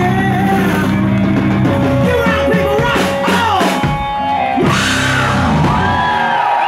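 Rock band playing live and loud, with distorted electric guitar and drums. Sustained notes slide up and down in pitch over a steady low drone.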